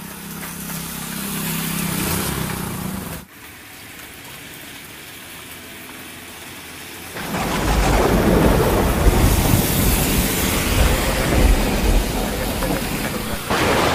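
Heavy rain falling, with a low steady hum in the first three seconds that cuts off abruptly. About seven seconds in, a loud, long rumble of thunder starts under the rain.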